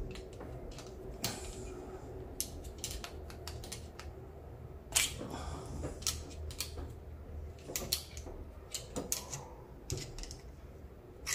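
Irregular small clicks and taps of a screwdriver prying a plastic fuel pipe out of a car's fuel pressure regulator, its rubber seal gripping tight.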